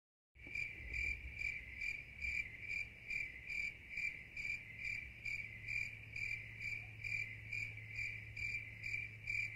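Cricket chirping, a steady high trill pulsing a little over twice a second, over a faint low hum. It starts about half a second in and cuts off abruptly at the end.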